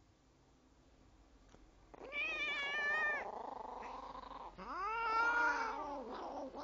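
A cat yowling twice: two drawn-out, wavering calls, the second longer, rising and then falling in pitch. These are the warning yowls of a cat in a standoff with a Chihuahua that is guarding food.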